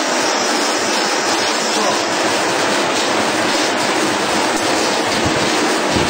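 Automatic glass-bottle washing machine running, with a steady hiss of water jets spraying into the upside-down bottles inside its chamber.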